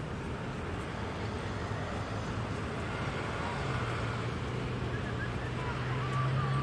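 Steady road traffic noise, with a vehicle's low engine hum coming in about halfway through.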